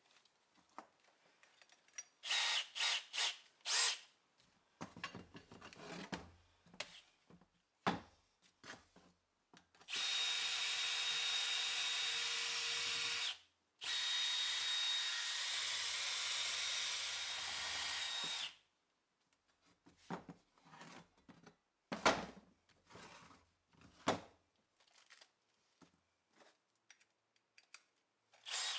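Cordless drill working on the cast-iron parts of a wood vise: a few short bursts, then two steady runs of about three and four seconds with a short pause between. Scattered knocks and clinks of metal parts being handled come in between.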